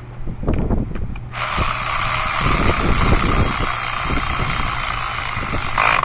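Electric ratchet running a spark plug down into the cylinder head: a steady motor whir starts about a second in and stops just before the end. Light knocks of handling come before it.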